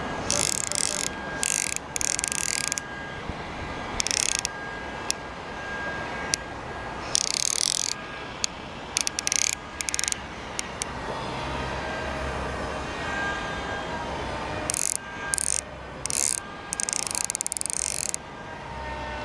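Hardy Ultralite CC 1000 fly reel clicking in about a dozen short bursts of rapid ratchet clicks, each under a second, over the steady rush of a shallow stream.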